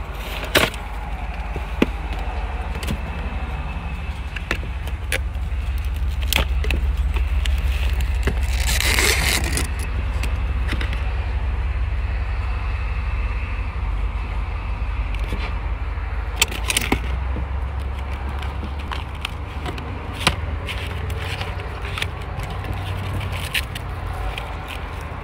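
Steady low vehicle rumble underneath the handling of paper and plastic food packaging: scattered clicks and taps, with a longer rustle about nine seconds in and another around seventeen seconds.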